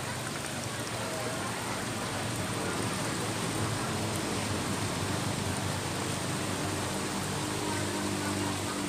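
Steady rush and splash of water pouring into a pond, with a faint low hum underneath.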